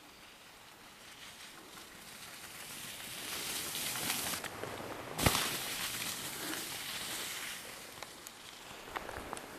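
Skis hissing and scraping over snow as a skier approaches, passes close by and moves away, rising to a peak and then fading. One sharp knock about five seconds in is the loudest moment.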